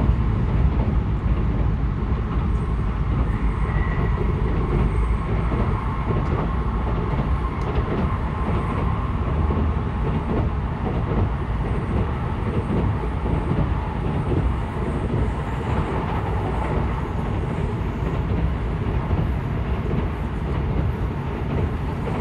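Cabin noise inside a running N700S Shinkansen car: a steady, dense rumble of the train on the rails, with a faint steady tone above it.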